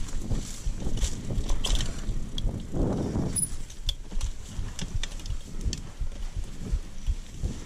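Mountain bike rolling along a dirt trail: a steady tyre rumble, with the chain and frame rattling and clicking over bumps.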